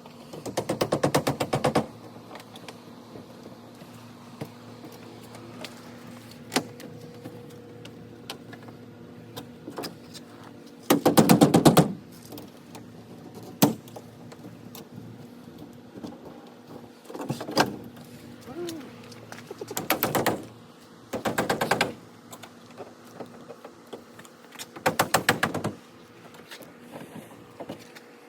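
A power driver running in about six short bursts of rapid clicking rattle, each lasting about a second, with single knocks in the pauses between, as fasteners are worked out of the shipping crate.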